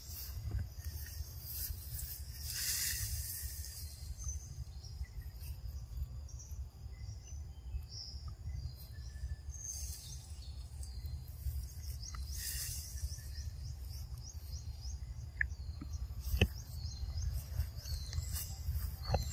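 Forest ambience: birds and insects chirping high over a steady low rumble, with a repeating trill in the middle and a few sharp clicks in the last few seconds.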